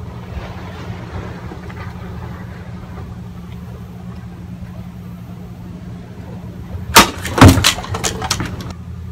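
A katana slicing through a plastic water bottle: a sharp crack about seven seconds in, a louder burst just after, then a few smaller knocks. A steady low rumble runs underneath.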